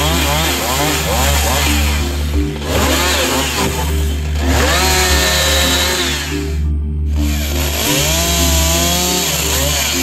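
Chainsaw revving up and down through a series of cuts into wood, its pitch rising and falling repeatedly and breaking off briefly about seven seconds in. Background music with a steady low bass plays underneath.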